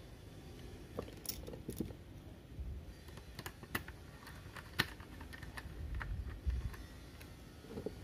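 Irregular small clicks and taps of a screwdriver and screw against the plastic handle housing of a hair straightener as it is screwed back together, over low handling rustle. The sharpest click comes just before the five-second mark.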